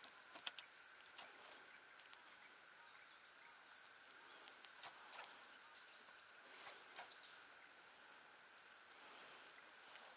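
Near silence: faint outdoor background noise with a few faint, scattered clicks and ticks.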